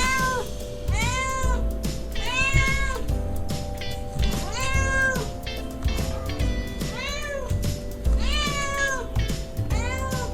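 Domestic cat meowing over and over, about one meow a second; each call rises and falls in pitch. Background music with held notes and a low bass plays underneath.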